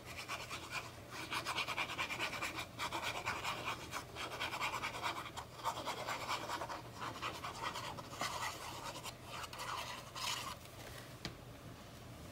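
Rapid scratching and rubbing of a hand tool on card stock, in quick strokes with short breaks, stopping about ten seconds in; a couple of light clicks follow.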